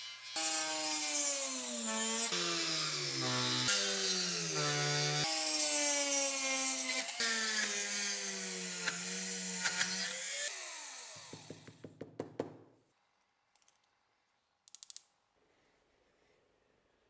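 Small electric power tools, a handheld rotary tool and a bench polishing wheel, working a brass blowtorch part. It comes in several short cuts: a steady motor whine whose pitch sags as the part is pressed on, then the motor spins down about ten seconds in, with a few light clicks. After that it is near silence, apart from a brief clatter near the end.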